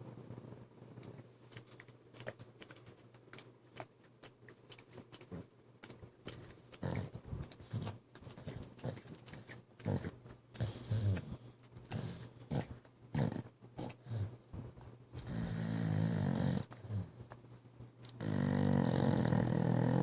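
A pit bull snoring in its sleep: quieter short breath noises at first, growing into louder snores, with two long, loud snores near the end.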